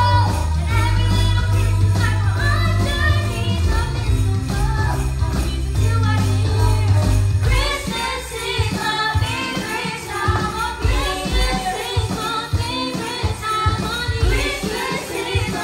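A small band playing a Christmas song: women singing into microphones over an electronic keyboard and an electronic drum kit. The heavy bass drops out about halfway through, leaving the voices over a lighter beat.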